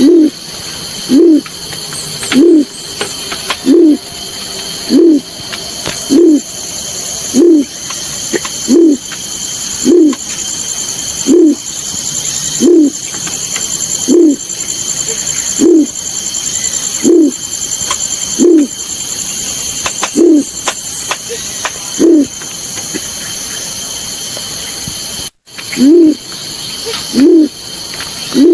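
Balorinay bird call: a short, low hoot that rises and falls, repeated steadily about once every 1.3 seconds as a lure call. It plays over a steady high-pitched buzz, and there is a brief break a few seconds before the end.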